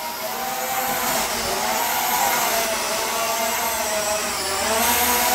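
Holy Stone HS440 quadcopter's brushed motors and propellers buzzing in flight, the pitch wavering up and down as it is flown quickly back and forth in its faster speed 2 mode.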